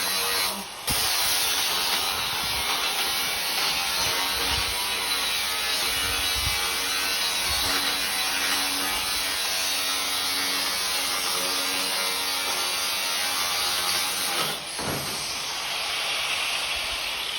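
A workshop machine or power tool running with a continuous harsh, sawing-like noise, briefly dropping off just under a second in and dipping again about 14.5 seconds in.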